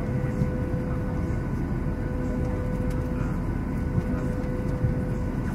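Steady drone of the small electric motor and propeller of a HobbyKing Bixler 2 RC plane, heard from its onboard camera with a dense rumble of wind noise. The pitch holds even throughout.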